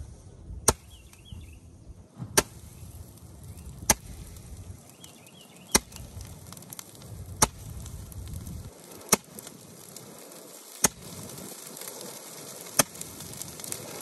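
A handheld Roman candle firing, eight sharp pops roughly every one and a half to two seconds as it shoots fireballs into a brush pile.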